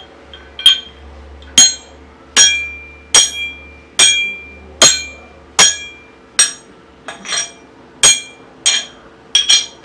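A hammer striking metal tools as a Foley stand-in for sword clashes: repeated sharp metallic clanks a little under a second apart, each ringing briefly, with two quick hits close together near the end.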